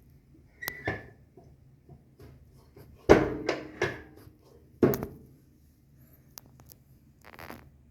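A series of knocks and clunks, the loudest cluster about three seconds in and another near five seconds, with a short rustling noise near the end.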